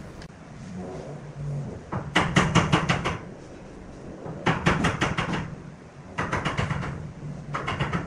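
Pencil scratching across the end grain of a round wooden slab as layout lines are drawn along a steel rule, in four bursts of quick back-and-forth strokes, about a second each.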